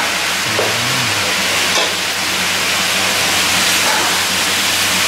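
Beef khua kling sizzling steadily in a wok as it is stir-fried dry with curry paste and a metal spatula.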